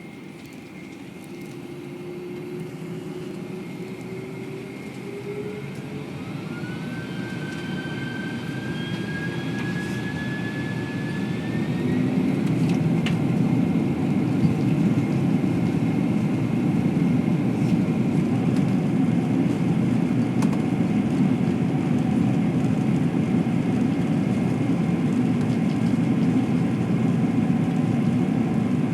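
Boeing 767 jet engines spooling up to takeoff thrust, heard from the passenger cabin. A whine rises in pitch and the sound grows louder over about the first twelve seconds, then settles into a loud, steady rumble for the takeoff run.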